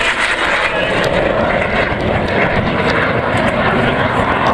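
Aerobatic airplane's engine running steadily and loudly as the plane flies its display.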